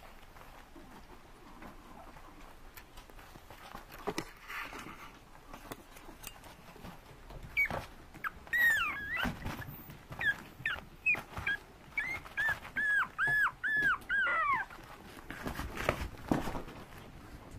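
Chihuahua puppy whining in a run of short, high-pitched yips, about two a second, beginning a little before halfway through and stopping a few seconds before the end. A few soft knocks come before and after.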